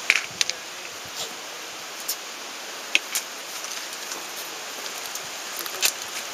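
Steady wind noise on a camcorder microphone, an even rushing hiss, with a few short sharp clicks scattered through it.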